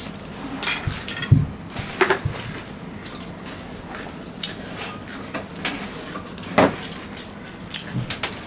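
Eating by hand: fingers mixing and scooping fried rice on ceramic plates, with scattered sharp clicks and taps against the plates, and chewing.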